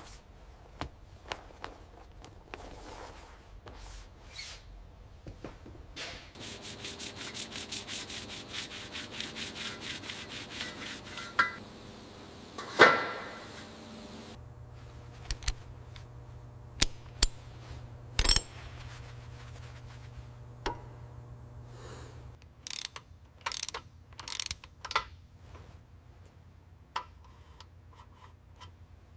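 Workshop rubbing and sanding-like scraping on parts, with a stretch of fast, even back-and-forth strokes from about six seconds in, a low steady hum through the middle, and scattered sharp clicks and knocks.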